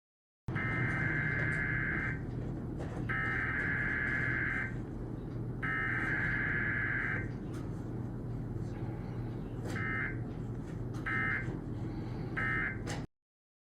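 Emergency Alert System digital data bursts, a harsh two-tone screech: three long bursts of the SAME header about a second and a half apart, then three short end-of-message bursts near the end. Underneath runs the steady low rumble of a clothes dryer.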